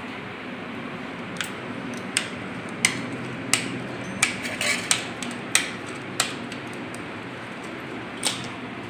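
A steel spoon's edge chopping a roll of bhatura dough into portions, clicking sharply against the worktop about ten times at uneven intervals, mostly in the middle and once more near the end. A steady hum runs underneath.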